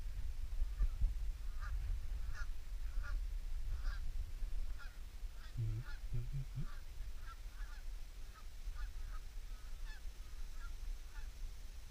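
Geese honking, a string of short calls about every half second to second, with a few deeper notes around the middle, over a constant low rumble.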